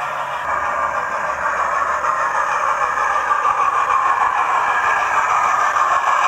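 Hornby A4 model steam locomotive running past with its TTS sound decoder playing steam-locomotive sounds through its on-board speaker, over the rumble of the model train on the track; it gets louder from about two seconds in as it approaches.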